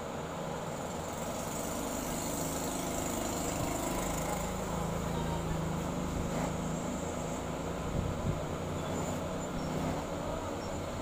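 Steady low mechanical hum and noise, with two soft knocks about eight seconds in.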